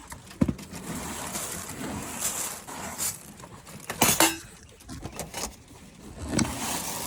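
Handling gear at a quail pen: a few sharp clicks and knocks of cage or feeder parts with rustling in between, the loudest knock about four seconds in, followed by a short squeak.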